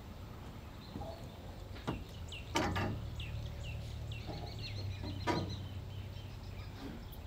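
Outdoor background with a run of short, quick bird chirps through the middle and a few sharp knocks as the aluminum pipe rack is handled, over a low steady hum.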